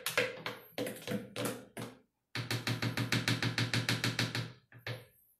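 A small spoon scraping and knocking against the inside of a blender jar as it stirs thick cake batter: a run of uneven knocks, then, after a brief pause, about two seconds of quick, even stirring strokes, about seven a second.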